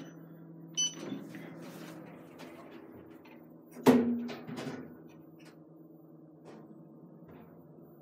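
Schindler lift car: a button beeps as it is pressed, and about four seconds in the car doors shut with a single thump. The car then hums steadily as it starts moving up.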